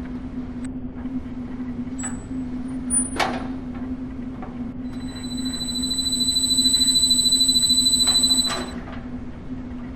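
A steady low hum with a few sharp clicks and a quick sweep about three seconds in. About five seconds in, a high-pitched whine sets in, swells, and cuts off sharply about three and a half seconds later.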